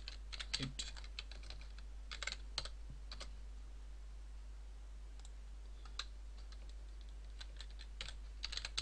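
Computer keyboard typing in quick bursts of keystrokes, with a pause of a second or two about halfway before a few single taps and a final flurry. A steady low hum runs underneath.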